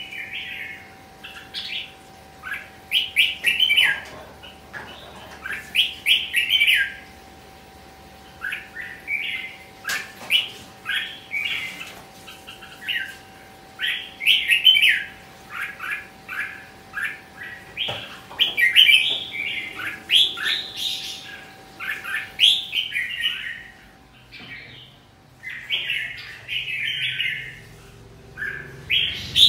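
Red-whiskered bulbul singing short, bright chattering phrases one after another, roughly one a second, over a faint steady hum.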